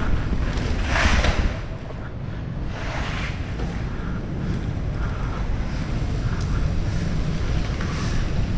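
Wind buffeting a GoPro's microphone on a downhill mountain-bike run: a steady low rumble with two louder rushes of noise, about one and three seconds in.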